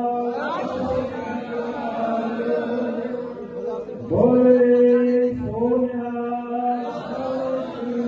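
Voices chanting over a steady droning tone that breaks off briefly twice and comes back.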